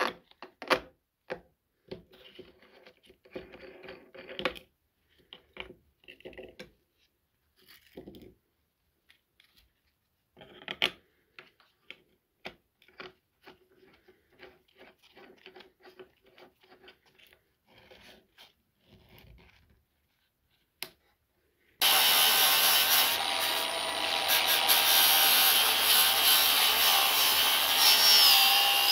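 Light clicks and clinks as a flap disc is changed by hand on an angle grinder, its flange nut undone and refitted. After about twenty seconds the angle grinder comes in suddenly and loudly, its abrasive disc grinding the steel head of a 10 lb sledgehammer.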